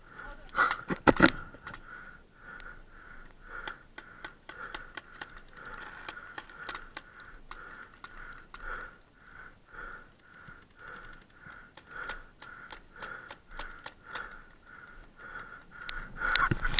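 Paintball markers firing around the bunkers: scattered pops and paintball hits, with two loud close cracks about a second in. A faint steady pulsing tone, about two beats a second, runs underneath.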